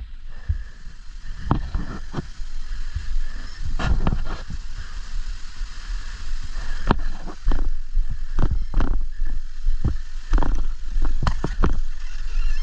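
Off-road motorcycle being worked along a rough creek bank: a steady low rumble under irregular knocks and clunks.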